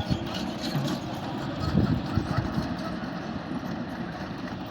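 Komatsu excavator's diesel engine running steadily, with a few louder knocks about two seconds in.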